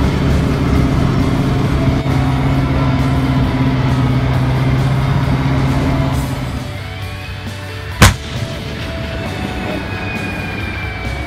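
Background music with a steady low hum for the first several seconds, then a single loud blast about eight seconds in: a tank's main gun firing.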